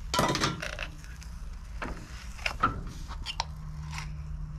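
Scattered light metallic clicks and scrapes of a hand tool working inside an outboard's water pump housing held in a bench vise, pushing the spun metal cup insert back into place. There are about eight sharp taps over a low steady hum.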